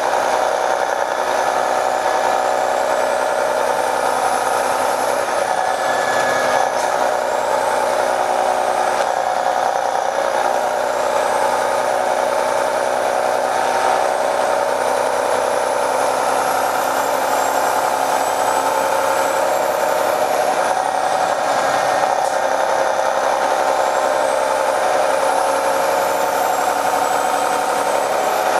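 Detroit Diesel Series 60 diesel engine of an MCI D4500 coach bus running steadily under way, heard from inside the bus. A high whine climbs and drops about three times as the bus speeds up and eases off.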